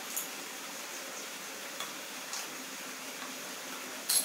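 Scattered light clicks of small parts and wires being handled at a model tractor, over a steady hiss; the sharpest and loudest click comes near the end.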